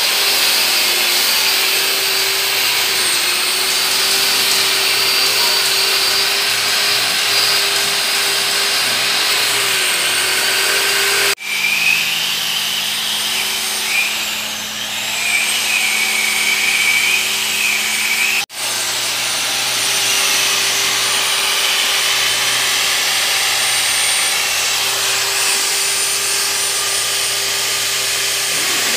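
Corded electric drill spinning wire brushes against an engine cylinder head, running steadily as it scrubs the metal. The sound cuts out sharply twice, and in between it has a higher whine.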